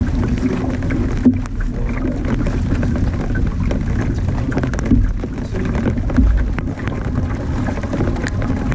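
Wind buffeting the microphone over the splash of paddle strokes and choppy water against a canoe's hull, with a few sharp knocks or splashes.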